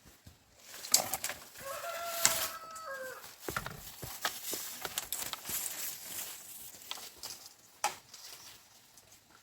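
A rooster crows once, a held call starting about two seconds in, amid scattered clicks and knocks.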